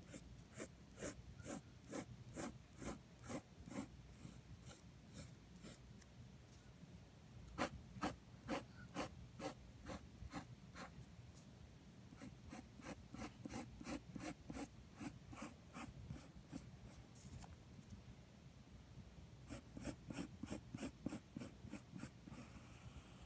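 Graphite pencil scratching on paper in quick repeated sketching strokes, about two to three a second. The strokes come in runs, with two pauses of a second or two between them.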